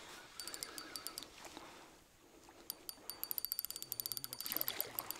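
Spinning reel ticking in fast runs of rapid clicks while a hooked asp fights on the line. The clicking pauses about two seconds in and starts again, denser, until the end.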